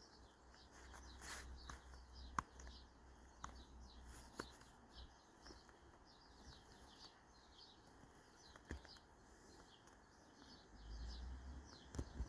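Near silence, with faint birdsong in the background, many short chirps, and a few soft clicks.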